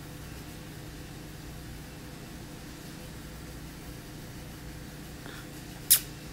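Steady low hum of a running appliance, with one sharp lip-smacking kiss near the end.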